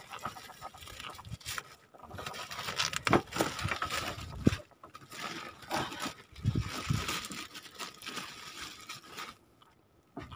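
Fishing net and gear being handled at the side of a wooden boat: irregular scrapes and rustles with a few sharp knocks, the loudest about four and a half seconds in.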